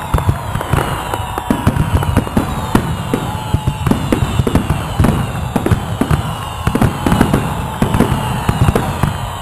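Fireworks going off in rapid succession: a dense, irregular barrage of bangs and crackles, with whistling tones that fall in pitch over it.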